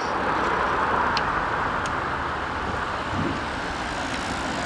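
Steady roadside traffic noise, with two faint clicks about a second and two seconds in.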